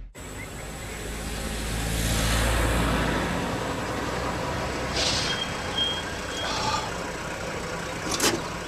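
A Mercedes-Benz box truck driving past, its low engine rumble swelling about two seconds in and then easing off. This is followed by a brief thin high brake squeal as it pulls up.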